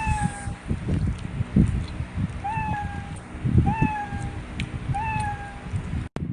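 Close-up chewing and crunching of fried chicken feet, with irregular crackles and thumps. Over it, a cat meows again and again, one short call about every second and a half, each rising quickly and then falling.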